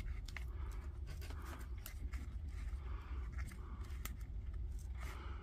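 Light rustling and small clicks of hands handling an opened Hilti B22 battery pack, its plastic housing and tape-wrapped cells, over a steady low hum.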